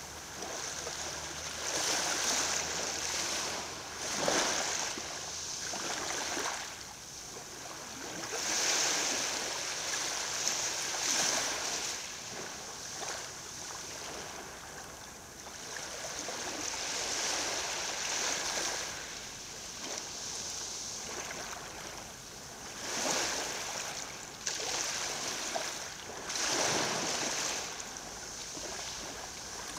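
Small sea waves lapping onto a coral-gravel beach, each wash swelling and fading again every few seconds.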